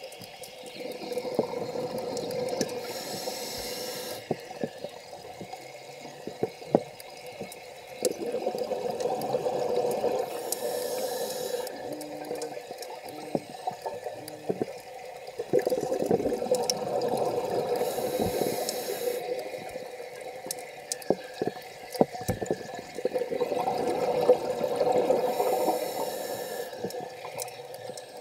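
Scuba diver breathing through a regulator underwater: four slow breath cycles, about every seven to eight seconds, each a rush of exhaled bubbles with a hiss of air through the regulator. Scattered small clicks between the breaths.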